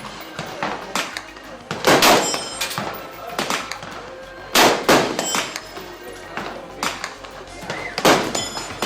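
Gunshots, each sharp report trailing off in echo. Two come close together about two seconds in, two more just before five seconds, another about eight seconds in, and there are fainter shots in between.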